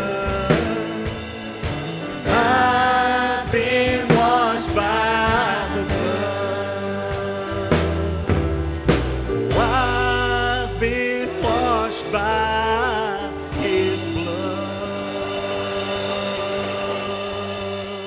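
A live church worship band playing a contemporary Christian worship song, a male lead vocalist singing the melody into a handheld microphone over drums, acoustic guitar and bass. The vocal settles into a long held note near the end.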